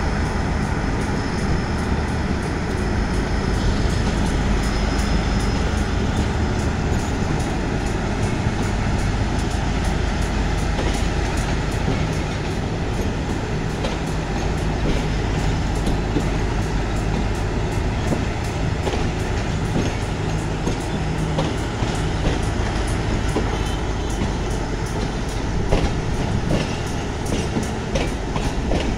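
Passenger train hauled by an HGMU-30R diesel-electric locomotive moving off, heard as a steady low running noise while the coaches roll past, with wheels clicking over rail joints, more often in the second half.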